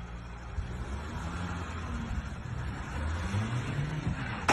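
A light truck's engine running under a dull hum, its pitch rising as it revs up toward the end. A sudden sharp knock comes right at the end.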